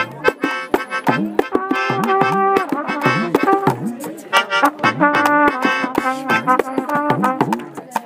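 Live acoustic jam: a trumpet playing held notes and short phrases over a steady beat of drums and hand claps.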